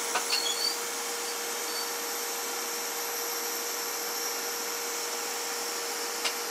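Cooling fan of a four-transistor Class C CB amplifier running: a steady airy hiss over a faint steady hum, with a few light clicks about half a second in and one near the end.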